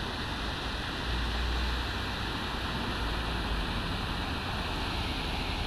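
Steady rushing noise of road traffic driving through floodwater, tyres splashing and pushing wakes across the flooded road.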